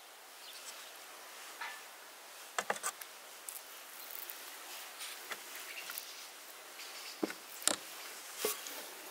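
Metal spoon clinking and tapping against a bowl and a steel cake ring while dollops of quince jam are spooned onto a sour-cream layer: a few sharp taps, two close together about two and a half seconds in and several more near the end, over a faint steady hiss.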